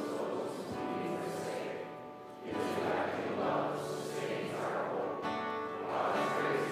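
A congregation reading aloud together in unison, a blurred mass of voices, over soft instrumental music with long sustained notes.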